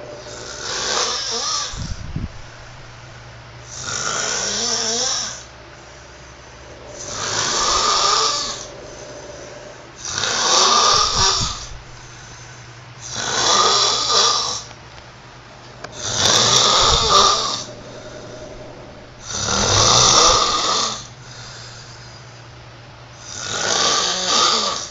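Snoring in long, breathy snores that come about every three seconds, eight in all, each lasting about a second and a half. A faint steady hum fills the gaps between them.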